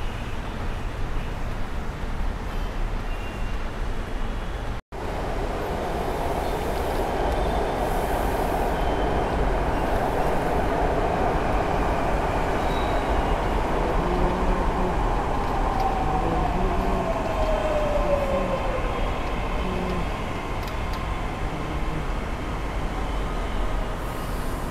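Mumbai Metro train running into the station: a rumble of wheels and motors that swells, with a whine falling in pitch a little past the middle as the train slows.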